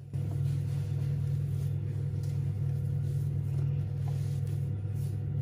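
A steady, low motor hum that switches on abruptly and runs evenly.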